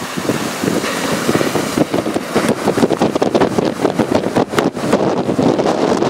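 Strong Santa Ana offshore wind buffeting the camera microphone in rapid, uneven gusts.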